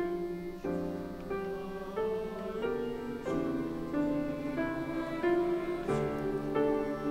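A choir and grand piano performing a classical choral piece, with the piano prominent and chords changing about once or twice a second.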